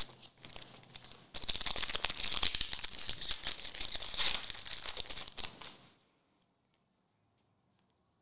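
Foil wrapper of a Pokémon card booster pack being torn open and crinkled: a dense, busy run of tearing and crinkling that starts about a second and a half in and stops about six seconds in.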